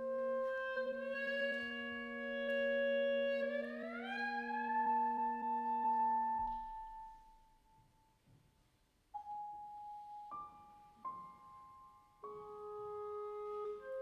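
Experimental music of sustained, ringing tones: a cluster of held notes glides upward in pitch about four seconds in and dies away, then after a brief near-silence new held notes enter one by one.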